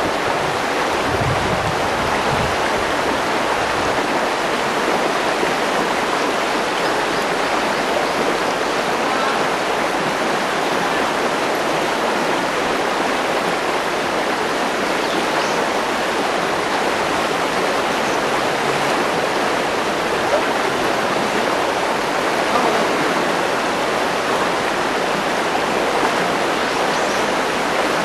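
Mountain river rushing steadily over its rocky bed.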